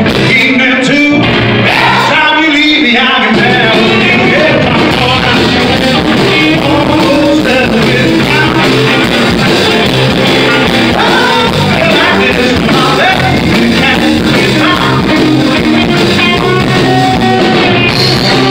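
Live blues-rock band playing loudly: electric guitars over drums, with a man singing in the first few seconds.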